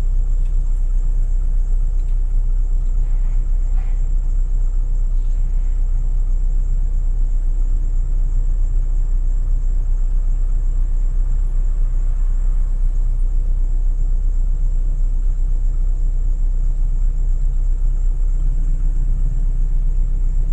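Car engine idling while stopped, a steady low rumble heard from inside the cabin.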